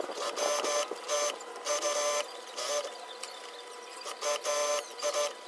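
Industrial sewing machine stitching fabric in short runs of under half a second, stopping and starting again several times, each run at a steady pitch. There is a pause of about a second past the middle.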